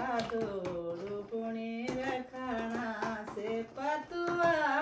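A woman singing a local Himachali folk song in one solo voice, holding long notes and stepping slowly between pitches, with short breaths between phrases.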